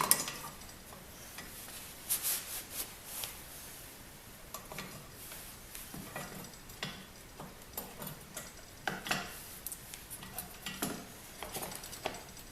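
Light metallic clicks and scrapes of hand tools working on a snowblower's sheet-metal and plastic engine shrouds, coming in scattered clusters, loudest about two seconds in and again about nine seconds in.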